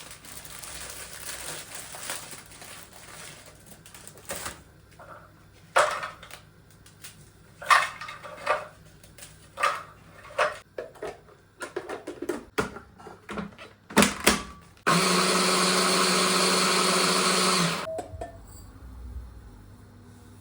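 Kitchen clatter of light knocks and clicks, then an electric kitchen blender runs steadily for about three seconds and cuts off.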